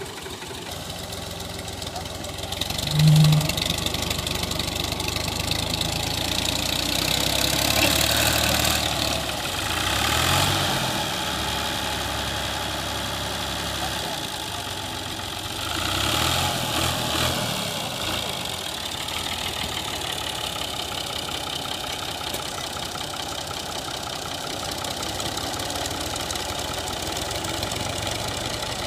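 Fiat-built New Holland 480S tractor's diesel engine idling steadily, with men's voices over it. A brief, loud low tone sounds about three seconds in.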